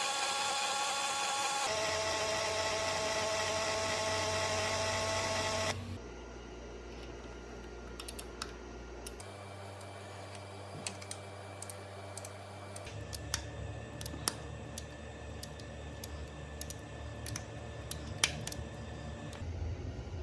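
A small motor runs with a steady whine and stops abruptly about six seconds in, followed by scattered light clicks and taps.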